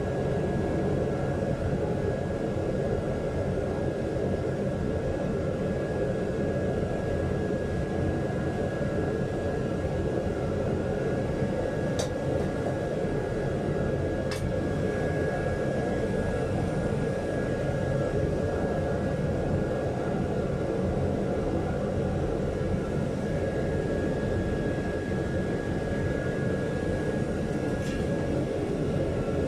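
Foundry melting furnace's burner running with a steady rushing noise and a faint steady whine. Two short sharp ticks come about halfway through.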